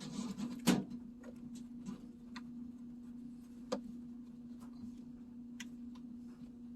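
Scattered light clicks and taps of hands and tools on a washing machine's cabinet while feeling for a hidden bolt, with two sharper knocks, over a steady low hum.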